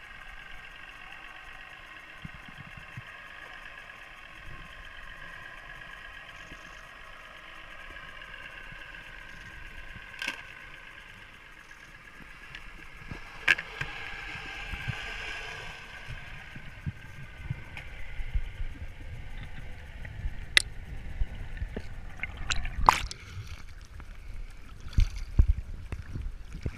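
Underwater sound picked up by a waterproof camera while diving: a steady hum through the water in the first half, scattered sharp clicks and knocks, then rumbling, gurgling and sloshing water that grows louder towards the end as the diver comes up to the surface.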